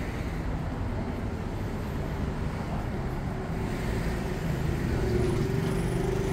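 Street traffic: a steady wash of vehicle noise with a running engine's hum, which grows a little louder and steadier about four and a half seconds in as a vehicle comes close.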